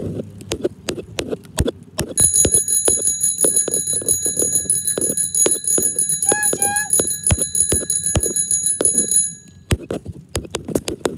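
A bell rings continuously with a high, steady ring for about seven seconds, starting about two seconds in and stopping near the end. Under it is the miniature train's low rumble and rapid clicking of wheels over the track.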